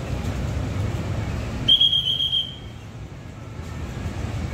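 Low rumble of a bus engine with a short, shrill whistle blast about two seconds in, one steady high note lasting about a second. After the whistle the engine rumble drops away to a quieter hum.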